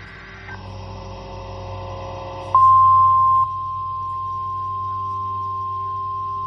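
Emergency-alert attention tone: a single steady high tone, the NOAA Weather Radio 1050-hertz warning alarm, starts abruptly about two and a half seconds in, very loud for about a second, then carries on at a lower level, announcing an incoming warning. Before it, a low hum of several steady tones grows gradually louder.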